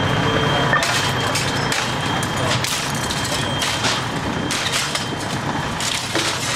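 Fire engine running steadily, with a thin steady high tone over it and scattered sharp knocks and cracks.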